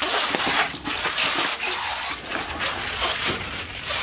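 Hoverboard wheels rolling over loose cardboard sheets on a tile floor: a continuous scraping, rustling noise.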